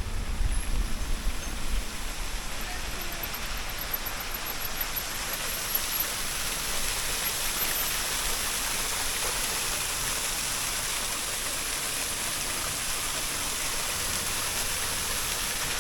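Steady rush of water, an even hiss that builds over the first few seconds and then holds level. Low gusty rumbling is heard in the first couple of seconds.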